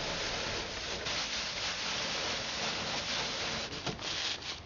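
Dry loose straw rustling as it is stuffed and pressed by hand between two layers of wire mesh, a steady dry rustle with a few sharper crackles near the end.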